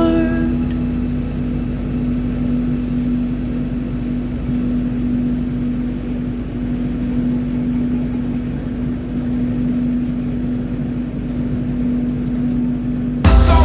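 Steady low rumble with a constant hum inside a moving passenger train's executive-class carriage. Music cuts in suddenly near the end.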